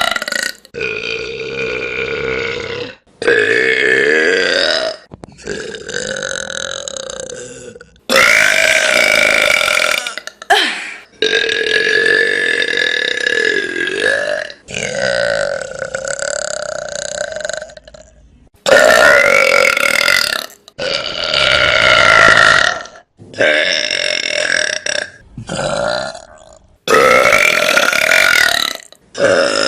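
Young women burping: a dozen or so long, drawn-out belches, each lasting one to three seconds, following one another back to back with abrupt breaks between them.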